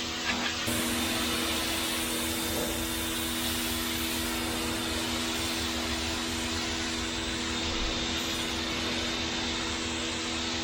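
Pressure washer running steadily, its motor and pump humming under the hiss of the water spray on concrete. There are a couple of brief knocks just after the start.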